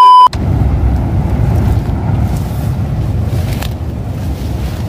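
A loud steady test-tone beep from a colour-bars transition, cutting off suddenly, then a loud, even low rumble of wind buffeting the microphone.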